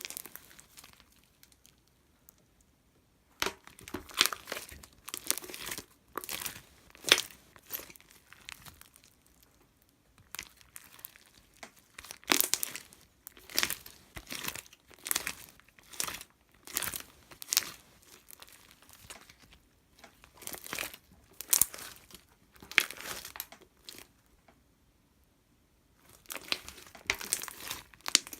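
Crinkling and rustling in irregular bursts of a second or so each, with a quiet pause near the start and another near the end.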